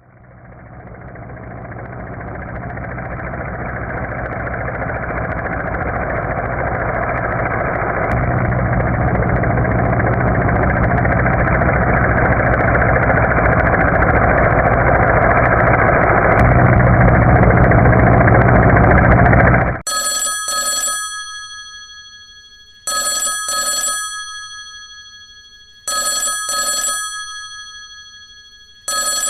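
An engine running steadily for about twenty seconds, fading in and growing louder in a couple of steps, then cutting off suddenly. A telephone then rings in double rings, four times about three seconds apart.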